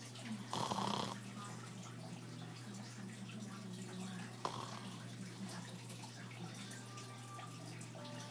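A sleeping person snoring: one short, loud snore about half a second in, over a steady low hum, with a brief click about four and a half seconds in.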